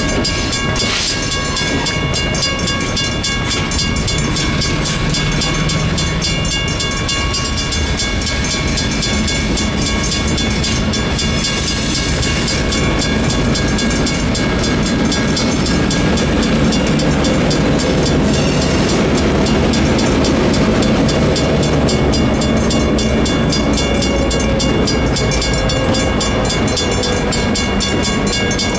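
Federal Signal mechanical railroad crossing bell ringing with rapid, even strokes over the rumble of a passing train.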